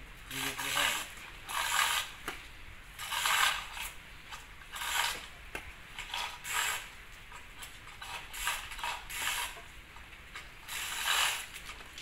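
Ratchet of a manual chain hoist (come-along) clattering in repeated strokes, about one every second or two, as the chain is pulled taut under the load of a heavy bulldozer undercarriage part.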